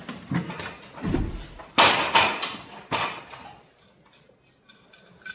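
Metal knocks and clanks of a steel garage door wheel bracket and its bolts being handled and set against the door panel. The loudest knocks come about two and three seconds in, followed by a quieter stretch.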